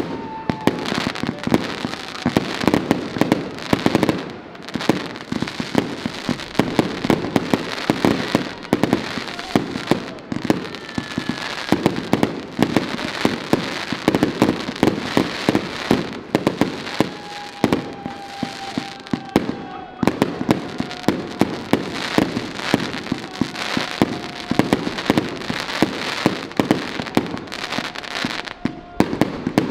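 A 150-shot, 1.2-inch consumer fireworks cake firing in rapid succession: a dense, unbroken run of launch thumps and aerial bursts, several shots a second.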